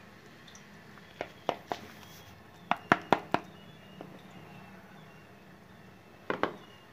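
A metal spoon knocking and clicking against a plastic mixing bowl while scooping thick egg-mayonnaise mixture. There are three separate taps about a second in, a quick run of four around three seconds, and a double tap near the end.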